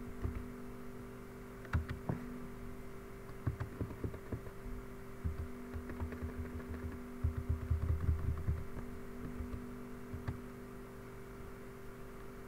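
Scattered computer keyboard keystrokes over a steady low electrical hum, with stretches of low thudding around the middle.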